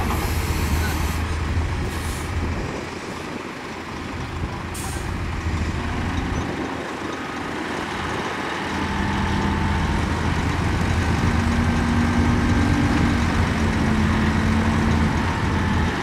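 Heavy diesel engines of earthmoving machinery running, with short sharp hisses of air near the start and again about two and five seconds in. From about halfway the engine note climbs and grows louder as a machine works under load.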